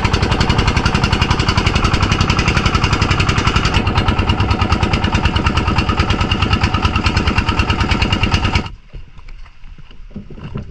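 Small boat's engine running steadily with rapid, even firing pulses, then stopping abruptly about eight and a half seconds in.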